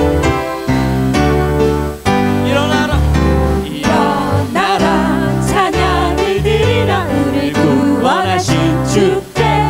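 Live worship song: a steady instrumental accompaniment plays, and a small group of singers comes in about two and a half seconds in, singing together.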